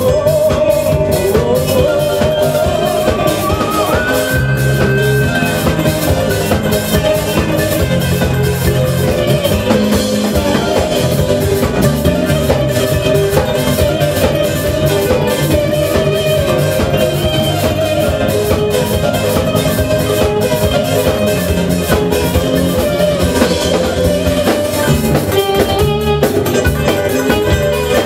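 Live Turkish band music: clarinet, kanun, bağlama, bass guitar and drum kit playing a steady beat under a held, ornamented melody line.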